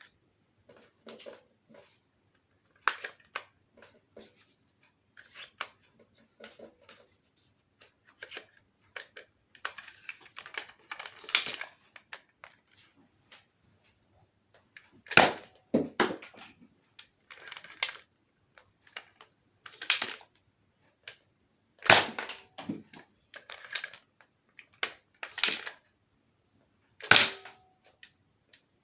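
Toy foam-dart blaster being handled and fired: plastic clicks and clattering of loading and cocking, with sharp snaps of shots at uneven intervals, about seven of them louder than the rest.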